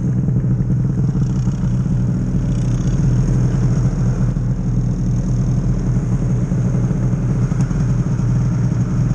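Snowmobile engine running steadily, with no revving and no change in pitch.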